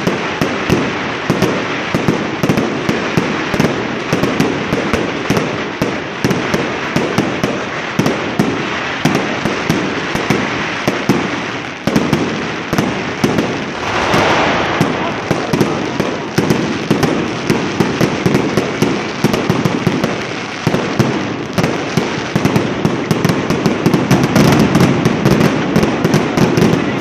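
New Year's Eve fireworks and firecrackers going off non-stop, a dense run of overlapping bangs and crackles. One louder burst stands out about halfway through.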